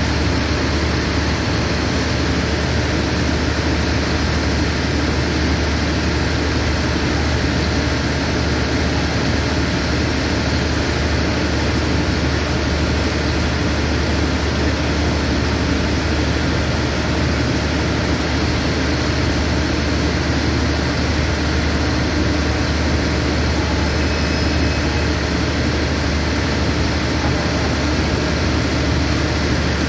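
Stopped diesel express train idling at the platform: a steady, unchanging low engine drone.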